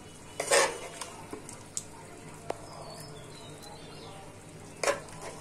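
Plastic serving spoon scraping and knocking against the pan and a clay bowl while thick curry is spooned out, with two louder scrapes, about half a second in and near the end, and a few light clicks between. Faint high chirps sound in the background around the middle.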